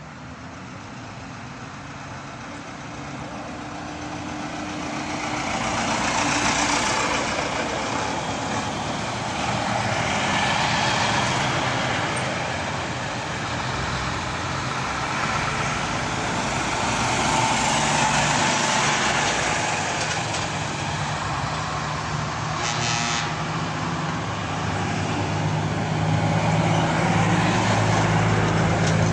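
Trucks and other road vehicles driving past one after another, including an ex-military truck, their engine and tyre noise swelling as each one passes. Near the end a low, steady engine drone comes from a vehicle towing a trailer, and about two-thirds of the way through there is a short sharp burst.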